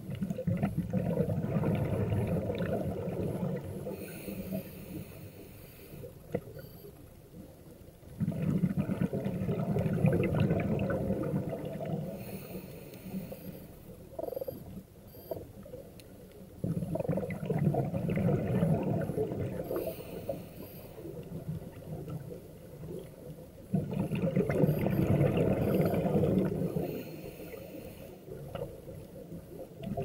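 Scuba diver breathing underwater through a regulator: a burst of exhaled bubbles rumbling for about three seconds roughly every eight seconds, four times, with quieter gurgling between breaths.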